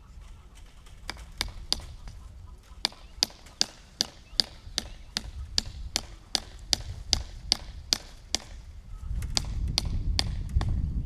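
Hammer strikes, about two to three a second, in a steady run of roughly twenty sharp blows during fence-brace work. A low rumble rises near the end.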